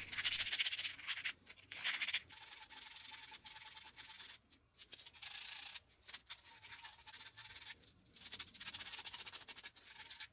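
Fine sandpaper scouring copper pipe and a copper fitting clean, the surface prep before soldering. It comes as runs of quick rubbing strokes broken by short pauses.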